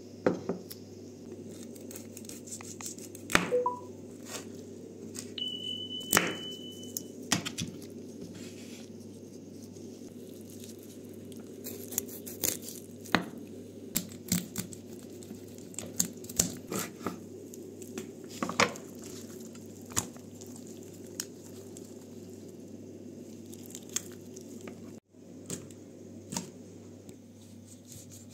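A kitchen knife cutting and splitting raw fish on a wooden cutting board while gloved hands handle the fish. There are irregular clicks and knocks of the blade and fish against the board over a steady low hum.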